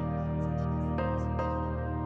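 Soft background music of held notes, with a new note struck about every half second to a second.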